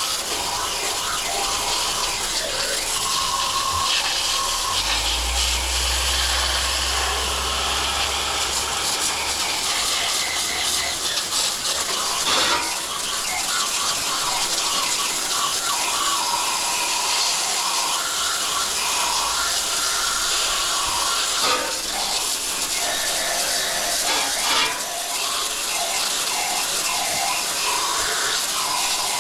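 Steady spray of water from a hose onto the iced-up outdoor coil of a Rheem heat pump, melting off the ice. A low hum sounds briefly for a few seconds near the start.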